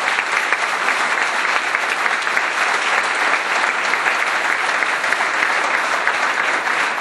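Audience applauding steadily in response to an applause line in a political speech.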